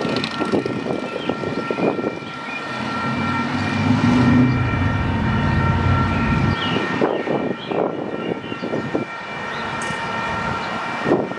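Freight train approaching behind its diesel locomotive. A low, steady pitched sound starts about two and a half seconds in and cuts off abruptly about four seconds later, against several steady high ringing tones that continue throughout.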